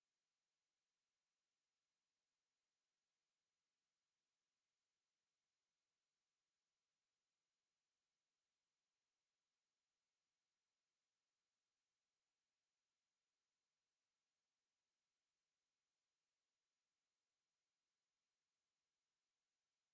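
A steady, high-pitched pure sine tone at 10346 Hz, one unwavering note with nothing else, a speaker test tone.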